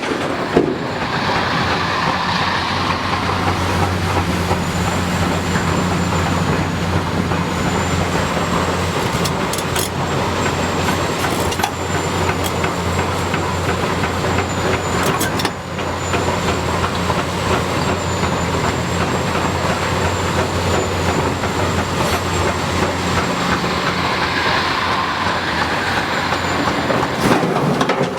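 Hitachi 330 excavator's diesel engine running steadily under work, with a few sharp metal knocks and clanks from the machine.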